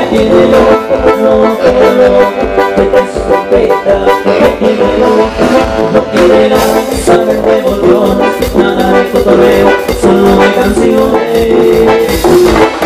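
Live band playing loud, amplified Latin dance music: a brass-sounding melody over keyboards and a steady drum beat.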